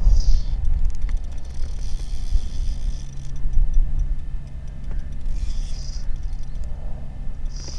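A loud, uneven low rumble, with a feeder rod's spinning reel being wound in over it: faint ticking and four short high whirring spells as the line comes in.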